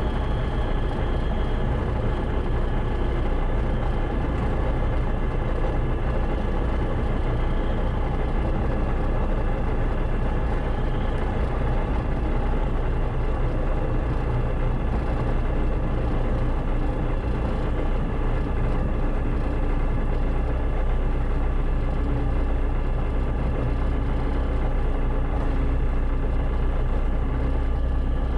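Diamond DA-20's single piston engine and propeller idling steadily as the plane rolls slowly along the runway.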